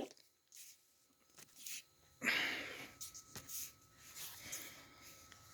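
A heavy breath out about two seconds in, amid faint clicks and rustles.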